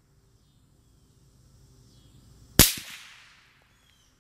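A single shot from a .223 AR-15 fitted with a home-built suppressor with freeze-plug baffles, heard from about 100 yards away: one sharp crack about two and a half seconds in, dying away over under a second.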